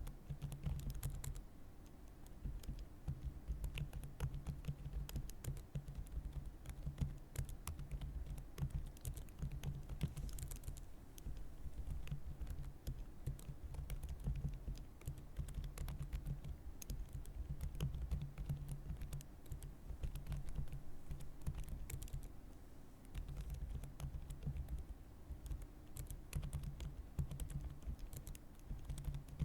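Steady typing on a computer keyboard: a quick, continuous patter of key clicks with a few short pauses.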